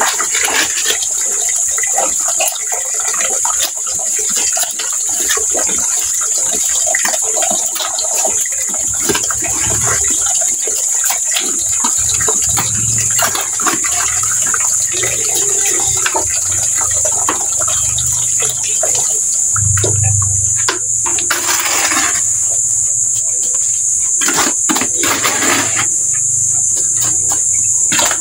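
Water running from an open garden tap and splashing into a bucket, with a trowel scraping and knocking against a metal bucket of wet cement mortar.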